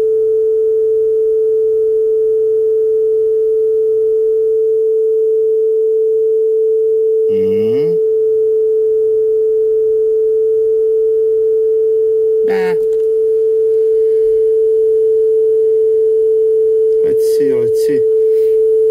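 A Yamaha KX-650 cassette deck playing a 440 Hz test tone from a test tape, one steady pure tone. The tape speed is being trimmed and the tone sits close to 440 Hz, a sign that the speed is nearly correct.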